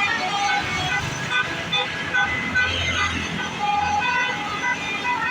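Basuri telolet multi-tone bus air horn playing a quick tune of short notes at several pitches, over a bus engine running low underneath.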